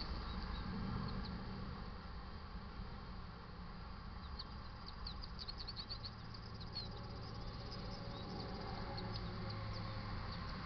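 Small birds chirping, with a quick flurry of short high chirps in the middle, over the low rumble of cars passing on the road.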